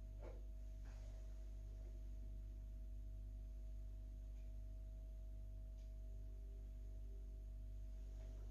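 Quiet room tone: a steady low hum with several faint steady tones above it, and a couple of brief soft rustles near the start as the book is set down on the mat and clothing shifts.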